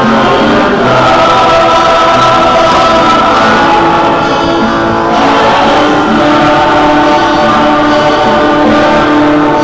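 Loud choir singing with instrumental accompaniment, in long held notes.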